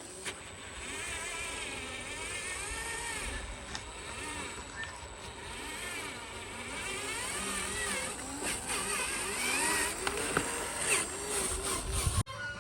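Whine of small electric motors on a radio-controlled model construction machine, rising and falling in pitch, with a few sharp clicks near the end.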